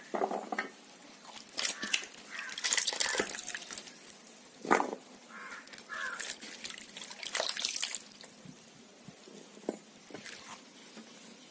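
Water dripping and trickling as rinsed, chopped banana stem pieces are lifted out of a basin of water onto a steel plate, in irregular short splashes.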